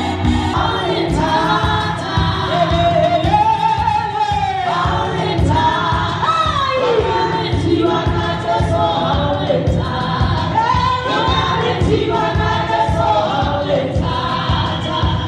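Gospel music: a choir singing together with a lead singer on microphone, over a steady, driving drum beat.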